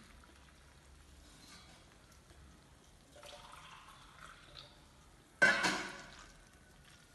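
Boiled hot water poured from a mug onto torn mushroom pieces in a bowl. A faint trickle about three seconds in, then a sudden loud splash a little after five seconds that dies away over about a second.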